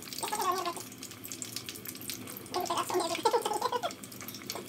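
Martabak parcels deep-frying in hot oil in a pot: a steady crackling sizzle. A voice-like pitched sound comes in twice, briefly near the start and again past the middle.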